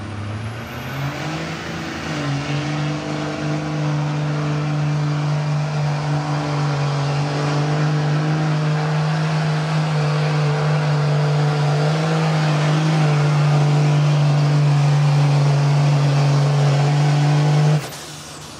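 Dodge Ram pickup's 5.9 Cummins inline-six turbo diesel at full throttle, pulling a weighted sled. The engine revs up over the first two seconds with a rising turbo whistle, then holds a steady pitch and grows louder through the run. It cuts off suddenly near the end.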